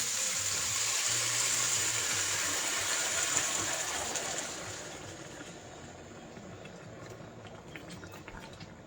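Beef pot roast sizzling in a hot pot, a steady hiss that dies down a little over four seconds in.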